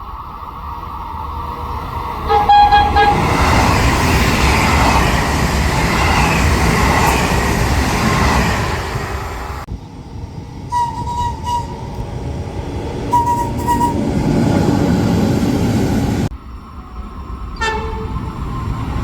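Trains passing and sounding their horns. A short horn blast comes about two seconds in, followed by the loud rush of a train running by for several seconds. The sound then changes abruptly to a few short horn toots in the middle and another short blast near the end, over continuing train running noise.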